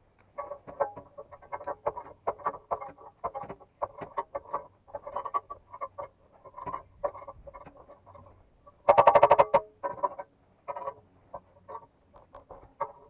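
Ratchet wrench clicking in quick runs as the harvester's track-link bolts are tightened. About nine seconds in there is a loud buzzing burst lasting under a second.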